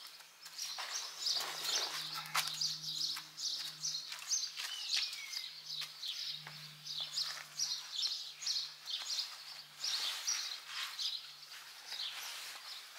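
Small birds chirping and twittering continuously, with one falling whistled note about five seconds in. A few light clicks and knocks and a faint low hum sit underneath.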